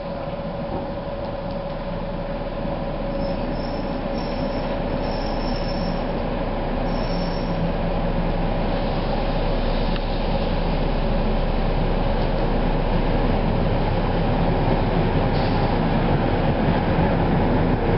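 Electric locomotive rolling slowly into the station and passing close by, its rumble growing steadily louder, with brief high wheel squeals a few seconds in.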